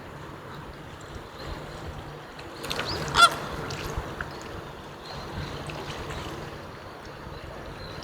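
Flamingos calling with goose-like honks: a short burst of calls about three seconds in, the loudest, over fainter scattered calls from the flock.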